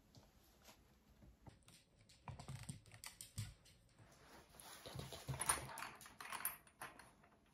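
Faint, irregular light clicks and taps, starting about two seconds in and busiest in the second half: a small metal latch and its screws being handled and set against the wooden slats of a gate panel.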